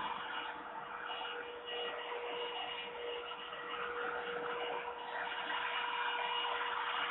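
Steady rushing background noise with a constant hum, without bird calls.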